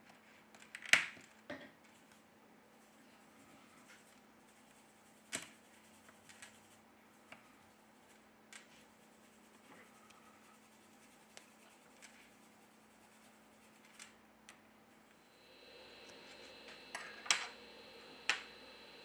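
Small sharp clicks and taps of fingers pressing a smartphone's charging-port board into its plastic frame, the loudest about a second in, then lighter scattered ticks and a few more clicks near the end. A faint steady hum comes in about three quarters of the way through.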